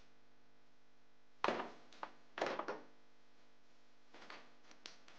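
Metal hand tools clattering as they are picked up and set down on the car's plastic cowl panel: two loud clatters about a second apart, then a few lighter clicks near the end.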